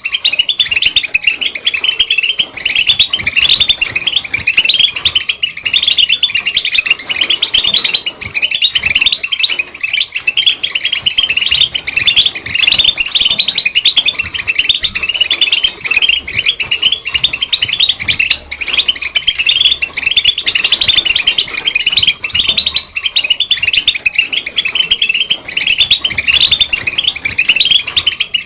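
European goldfinch singing: a continuous, fast twittering of short high chirps and trills with no pauses.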